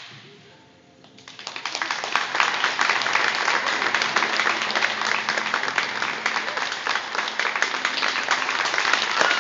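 A single sharp hit at the very start, then audience applause that builds from about a second in and holds steady over faint sustained music.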